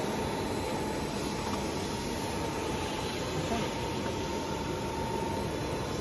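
Corrugated plastic pipe extrusion line running: a steady machinery hum with a thin, constant whine above it.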